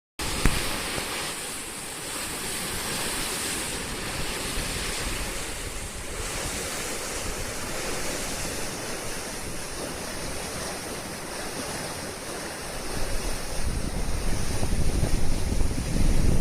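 A swollen river in typhoon flood rushing steadily, with typhoon wind blowing on the microphone. Heavier gusts buffet the microphone in the last few seconds.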